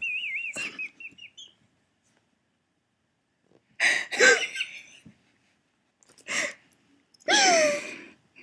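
A woman wheezing as she laughs very hard: a high, wavering squeak, then a silent stretch, then three breathy, gasping bursts of laughter, the last falling in pitch.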